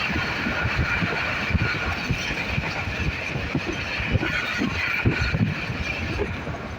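Passenger train running at speed: steady rumble and rattle of wheels on the rail, with a high ringing squeal over it and irregular low knocks.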